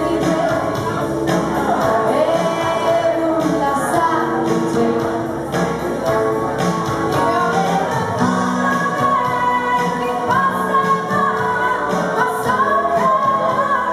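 A woman singing a slow Italian pop song live into a microphone, backed by a small band with electric guitar and keyboard over a steady beat.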